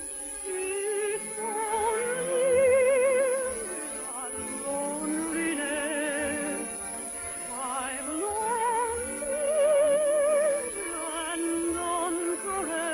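Operetta-style singing with a wide vibrato over an orchestra, in long held notes that rise and fall in pitch, from an old radio broadcast recording.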